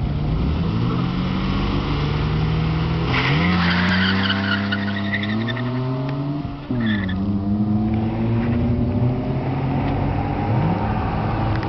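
Two BMW sedans accelerating hard side by side, their engines revving up with a burst of tyre squeal about three seconds in. About seven seconds in the engine note drops sharply on an upshift, then climbs again as they pull away.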